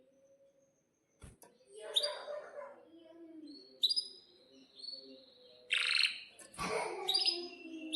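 Domestic canary calling and singing in short, separate phrases: chirps, a note that slides down into a held whistle, and a buzzy note, with pauses between. Two sharp knocks, about a second in and again near the end.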